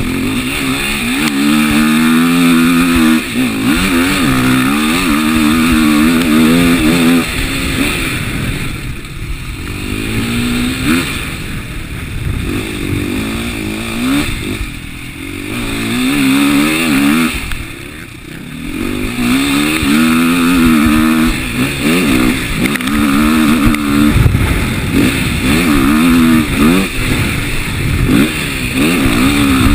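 On-board sound of a motocross dirt bike's engine being ridden hard, revving up and backing off over and over as the rider works the throttle and gears, the pitch climbing and falling with each pull. Several times the engine drops back briefly before pulling hard again.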